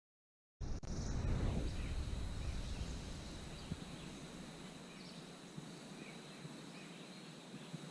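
Outdoor ambience: a steady background hiss with faint, scattered high chirps, opening with a low rumble for about a second after the sound cuts in.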